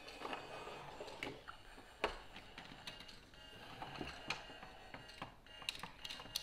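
Plastic LEGO pieces clicking and clattering as they are picked up and pressed together, in scattered sharp clicks with the loudest about two seconds in.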